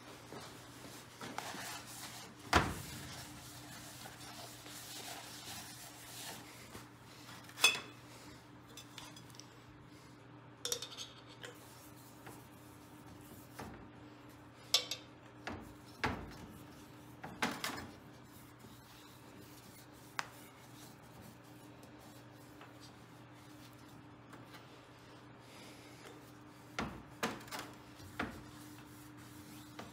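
Metal engine parts clinking and knocking as they are handled and set down on a workbench: about ten separate sharp hits spread unevenly, with a steady low hum underneath.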